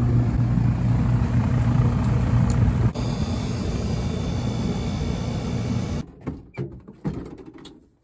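Outdoor air-conditioner condenser running, with a steady low electrical hum under the rush of the fan. The unit is running again after a quick fix. About six seconds in the sound drops away, leaving a few faint knocks.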